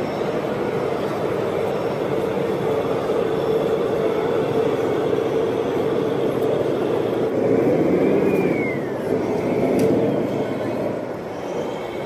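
Steady engine-like running noise, with a short falling whistle about eight seconds in.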